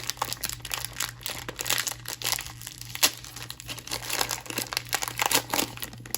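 Plastic wrapper of a football card value pack crinkling and tearing as it is ripped open, a dense run of irregular sharp crackles.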